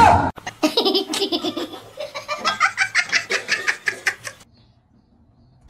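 A person laughing in quick, repeated bursts, after a short loud sound at the very start. The laughter stops about a second before the end.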